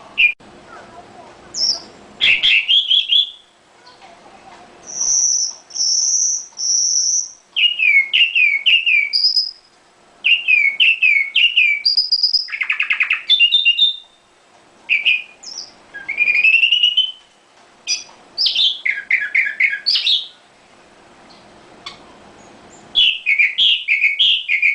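Small songbird singing a varied, loud song of short high chirps, trills and whistled downslurs in phrases of a second or two, with brief pauses between them.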